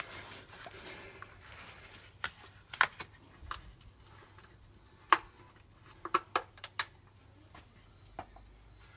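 Scattered sharp clicks and knocks of hand work under the bonnet, about ten in all, with a quick cluster of four between six and seven seconds in.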